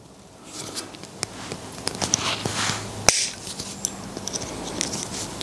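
Long-nose pliers working a wire grip into a Gemini grip lead weight: small scattered metal clicks and scrapes, with one sharper click about three seconds in.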